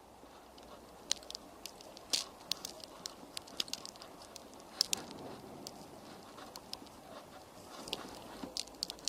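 Snow pattering on the camera in sharp, irregular ticks over a soft steady hiss.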